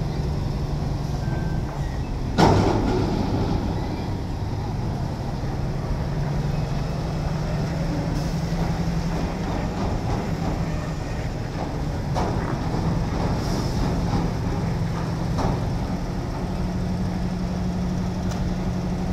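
Heavy diesel engine running at a steady speed, its pitch stepping up a little about three quarters of the way through as the container lift is readied. A single sharp clank about two seconds in, the loudest sound, with a few fainter knocks later.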